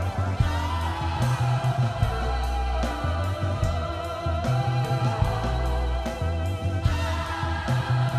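Background music: a steady beat with drums, bass and guitar.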